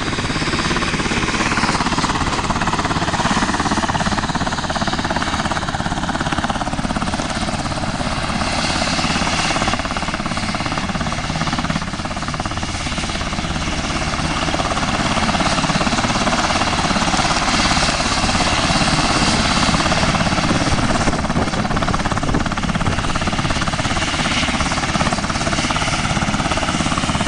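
Sikorsky H-60 Black Hawk helicopter running with its main rotor turning: a loud, steady mix of rotor noise and turbine whine from its twin turboshaft engines.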